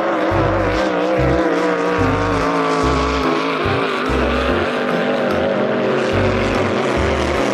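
Speedboat engine sound effect running steadily, its pitch wavering slightly, with an uneven low throb underneath.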